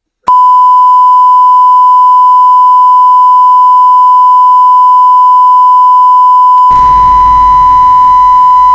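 Loud, steady censor bleep: one unbroken, high single-pitched beep starting about a third of a second in. About two seconds before the end, a rough, noisy sound joins underneath the beep.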